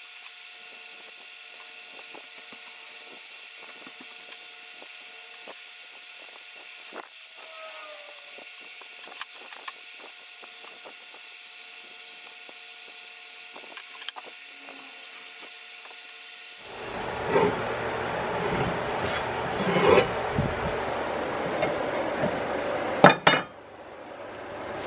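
A quiet steady hum with a few light taps and scratches while an engine-mount template is traced onto steel plate. About seventeen seconds in, a power tool starts cutting the clamped steel plate, a loud rough grinding noise that rises to a sharp peak and breaks off briefly near the end.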